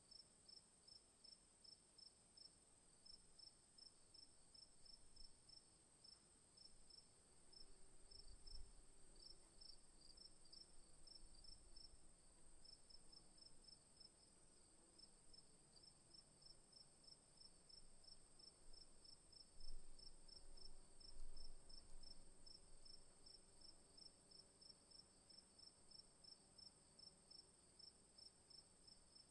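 Crickets chirping in a steady, even rhythm, about two to three chirps a second, over a constant high insect hum. A few low bumps are heard around a third and two-thirds of the way through.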